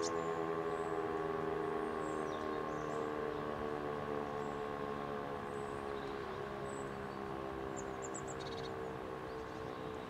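E57 motor siren winding down: its multi-tone wail falls slowly in pitch and fades gradually.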